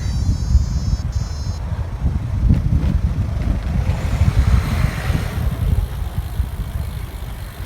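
Wind buffeting the microphone as a low, gusting rumble. A high multi-tone beeping runs for the first second and a half, and a hiss swells and fades about halfway through.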